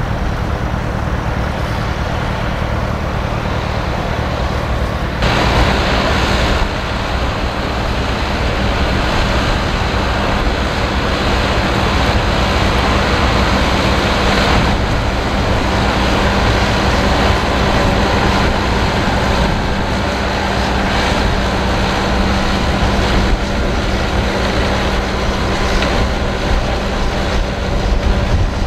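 Fendt 724 tractor's six-cylinder diesel engine working steadily under load as it pulls a six-furrow reversible plough through the soil. A broad rushing noise joins the engine and grows louder about five seconds in.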